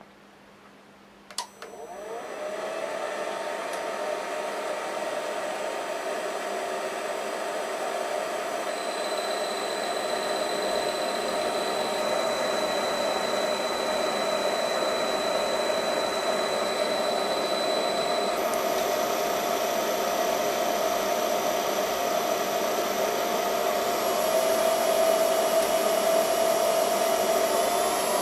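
Air-cooled CNC spindle motor, driven by a VFD, starting after a click about a second in and then running at low speed with a steady whir and faint whine. Its tones shift a couple of times, near the middle and again near the end.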